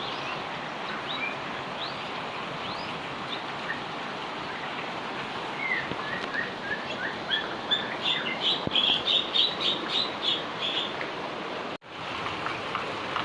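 Steady rain, with a small bird giving a quick run of short, repeated chirps about halfway through that climb higher in pitch. The sound drops out for an instant near the end.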